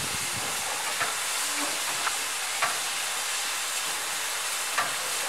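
Class 01 steam locomotive 01 1533 standing with steam escaping in a steady hiss. A few faint short clicks sound over it.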